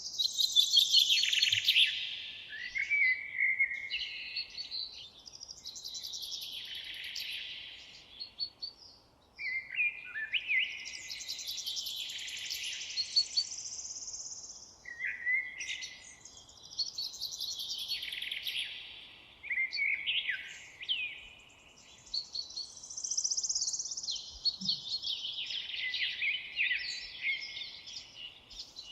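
Songbirds singing in a forest: high, fast, varied song phrases of two to three seconds each, repeating every few seconds with short pauses between them.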